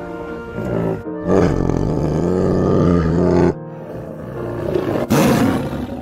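A big cat's calls: a long, low, rough call starting about a second in and lasting about two seconds, then a shorter loud call near the end, with music playing underneath.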